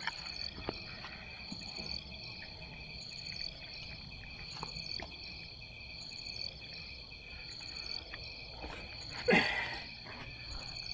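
Insects chirring steadily on a few high pitches, with a fainter chirp repeating about once a second. About nine seconds in comes one brief, loud noise.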